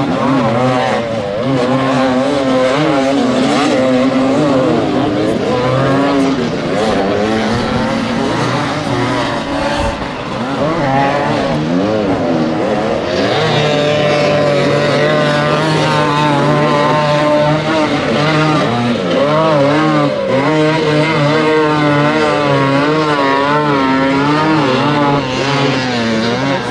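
Several enduro motorcycle engines revving hard and unevenly as they are worked up a steep, loose gravel climb, their pitches overlapping and swinging up and down all the time.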